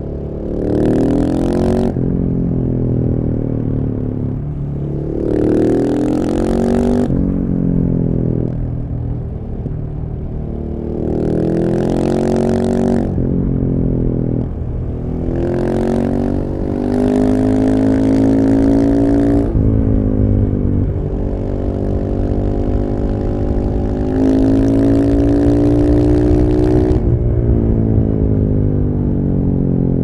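KTM 690 SMC's single-cylinder engine through an Akrapovic full exhaust, riding on the road. The engine note climbs under throttle several times and drops back at each gear change or when the throttle is eased off.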